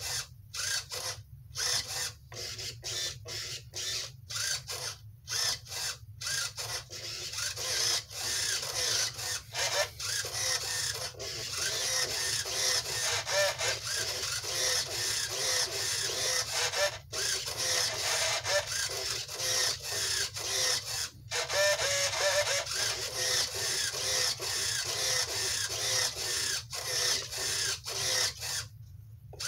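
Standard-size RC servos (Airtronics 94102, Tower Hobbies TS-53 and Futaba S3010 high-torque) whirring as they are driven back and forth, running on a single-cell 3.7 V LiPo with no sign of weak moves. For the first dozen seconds it comes in many short separate moves with pauses between them, then turns into nearly continuous whirring with a wavering pitch.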